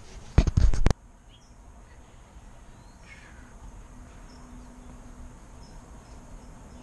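A brief loud rustle of a paper towel being handled, about half a second in, cutting off abruptly; then quiet, with only faint small handling sounds.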